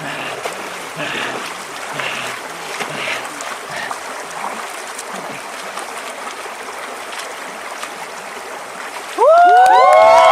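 A steady rushing, water-like noise with faint voices underneath. About nine seconds in, a group of voices breaks into a loud shout, each voice sliding up and then holding a long note.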